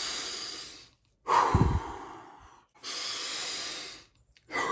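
A man taking deep, audible breaths, four in a row with short pauses between them; the second exhale starts with a brief low voice. He is short of wind after sweating.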